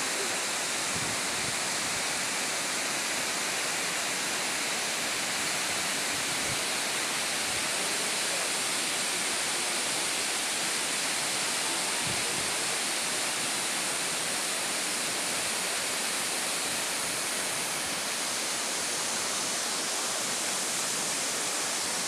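Cascata delle Marmore, a tall tiered waterfall, pouring: a steady, even rush of falling water.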